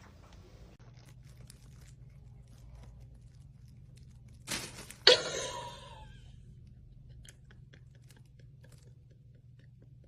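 Faint scattered clicks and crunching, with a sudden loud crash about halfway through. The crash rings on for about a second.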